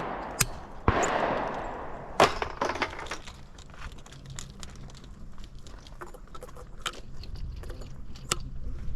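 Two shotgun shots about a second apart, each followed by a long rolling echo. Scattered small clicks and knocks follow.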